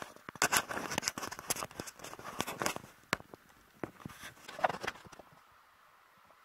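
Hurried footsteps with the clatter and scuffing of gear and an airsoft rifle as a player moves quickly: a dense run of irregular clicks and scrapes that stops about five seconds in.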